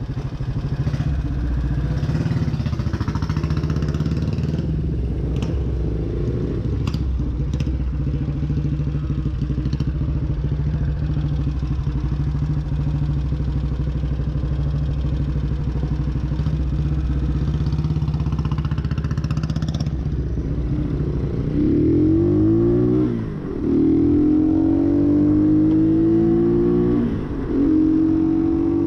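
Motorcycle engine running steadily at a low, even speed, then pulling away and accelerating, the pitch climbing, dropping briefly at two gear changes and climbing again. A few light clicks about five to eight seconds in.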